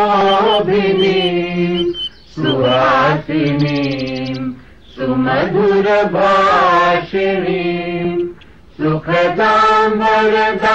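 Chant-like singing: long held notes with a slight waver, sung in drawn-out phrases with brief breaks about two, five and eight and a half seconds in.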